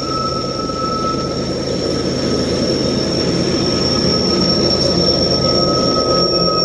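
Intermodal freight train rolling past with a steady high-pitched wheel squeal over a low rumble, growing slightly louder, with constant heavy rain and running water underneath.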